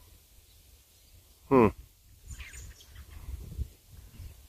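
Quiet outdoor ambience with faint high bird chirps, broken about one and a half seconds in by a single short vocal sound from a man.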